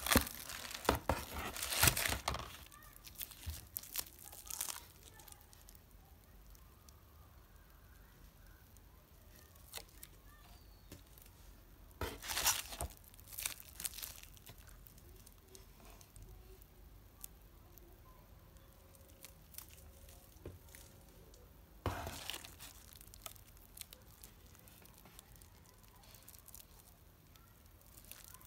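Packaging being crinkled and torn open in three short bursts, near the start, about twelve seconds in and about twenty-two seconds in, with small clicks and taps between.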